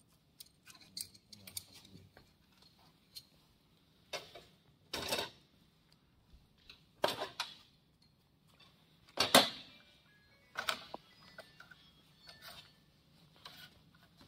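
Scattered clicks, scrapes and knocks of a metal hand tool working the screws and housing of a Raytools BM110 fiber laser cutting head as it is taken apart. The loudest knock comes a little past the middle.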